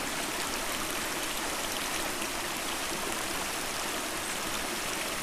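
Shallow, rocky stream running steadily over stones: an even, constant rush of water.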